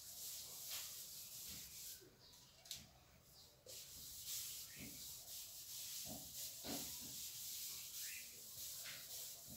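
Handheld whiteboard eraser rubbing across a whiteboard in repeated strokes, wiping off marker writing, with a short pause about two seconds in.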